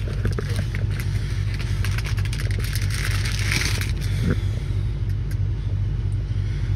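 Clear plastic packaging crinkling as a new LED door projector lamp is unwrapped by hand, busiest about three to four seconds in, over a steady low rumble.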